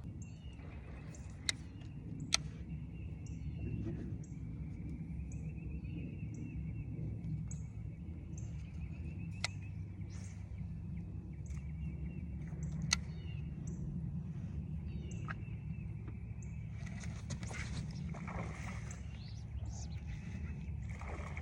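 A bird calling short high chirps about twice a second over a steady low rumble, with a few sharp clicks.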